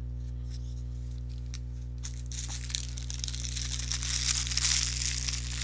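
Steady electrical hum, then from about two seconds in rustling and crinkling of packaging being handled close to the microphone, loudest shortly before the end.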